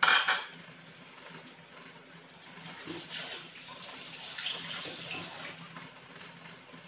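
Kitchen sink tap running into the sink for about three seconds, from a couple of seconds in. A short loud burst of noise comes right at the start.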